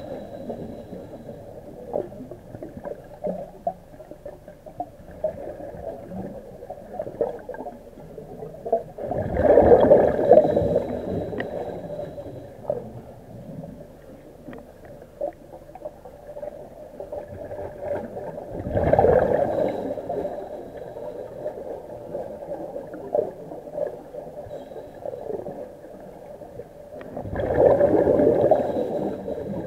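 Underwater recording of a diver's exhaled air bubbling out in three gurgling bursts, each two to three seconds long and about nine seconds apart, with faint clicks and rumble between them.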